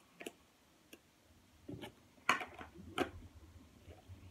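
Slime being packed into a clear plastic bag by hand: a few faint clicks, then a run of short plastic rustling and handling noises from about two seconds in.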